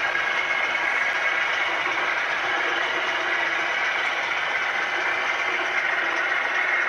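A model diesel locomotive's DCC sound decoder playing a diesel engine running steadily, heard through the model's small onboard speaker, so it has little deep bass.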